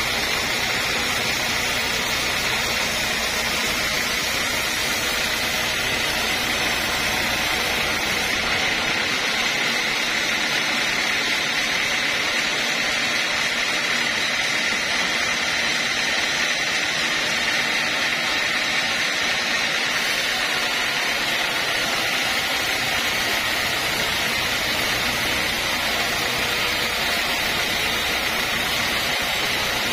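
Homemade band sawmill running steadily as its blade rips lengthwise through a squared mahogany log, a continuous even cutting whine with no breaks.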